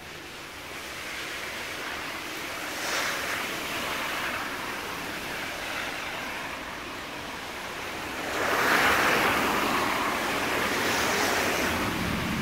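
Steady hiss of rain falling on wet pavement and parked cars, swelling a little about three seconds in and louder from about eight seconds on.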